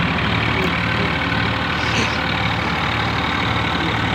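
Swaraj 855 tractor's three-cylinder diesel engine running steadily under load while it pulls a straw reaper through wheat stubble, its revs holding without dropping. The reaper's machinery adds a steady rushing noise over the engine's low pulsing.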